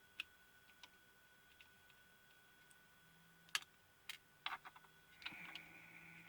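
Scattered small clicks and taps from handling the parts of a disassembled pico projector. The loudest click comes about three and a half seconds in, then a quick run of clicks, and a short scrape near the end; otherwise near silence.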